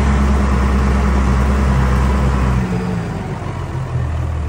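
International Harvester tractor engine running steadily under way. Its low drone eases off a little past the middle and picks up again near the end.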